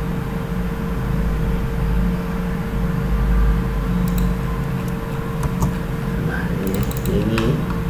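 A steady low hum with a constant tone above it. A few sharp clicks come about four seconds in, again a little later, and a cluster near the end.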